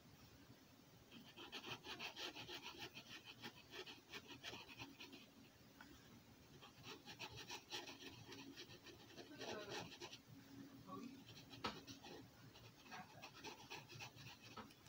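Black felt-tip marker scratching on paper, faint, in clusters of quick short strokes as small shapes are filled in. One sharp tick comes late on.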